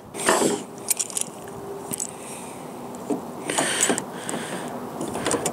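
Scraping and clicking of a flush-mount truck bed tie-down's plastic and metal parts as it is rocked and pushed into the bed rail pocket, with its screws backed out to clear the rail's metal lip. The sounds come in several short bursts, the loudest near the start and just before four seconds in.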